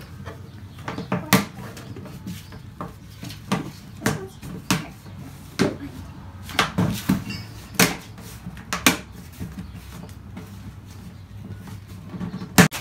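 Black plastic lid of a compost bin being pressed and worked onto the bin by hand: irregular clicks and knocks of hard plastic on plastic, about one every half second to a second, with the sharpest knock near the end.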